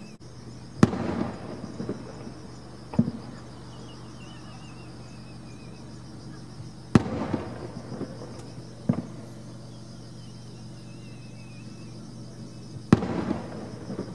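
Aerial fireworks shells bursting at a distance: five booms, the loudest about a second in, at about seven seconds and at about thirteen seconds, with softer ones between, each trailing off in a rolling echo.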